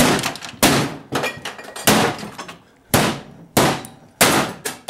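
Hammer blows on a projection TV's case, about seven sharp strikes less than a second apart, cracking the case open.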